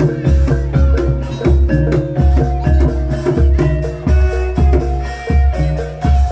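Live Javanese gamelan-style music for a Dawangan folk performance: a melody of ringing struck metal keys over a steady, heavy drum beat about twice a second.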